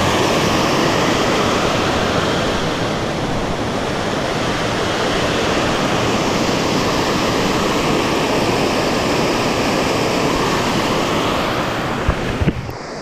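Creek whitewater cascading over rock close by, a loud steady rush. Near the end it falls a little quieter and there are a few short knocks.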